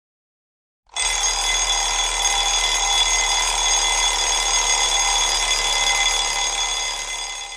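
Chrome twin-bell alarm clock ringing continuously. The ring starts about a second in and dies away near the end.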